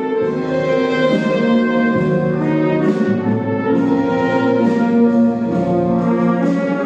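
Wind band of brass and woodwinds playing a slow passage of held, sustained chords.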